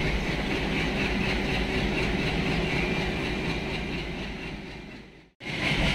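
Passenger train pulling away, heard from inside a coach: the WDG3A diesel locomotive's engine running with a low rumble over the coach's running noise. The sound fades down a little after 4 seconds in, cuts out for a moment, then comes back.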